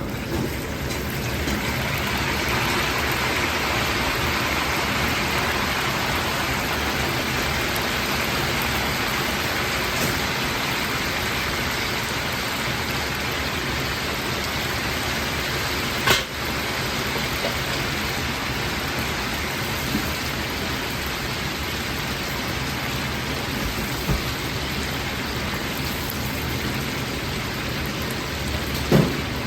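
Chicken wings deep-frying in hot oil: a steady, dense sizzle that swells up over the first second or two. A sharp knock comes about halfway through and another near the end.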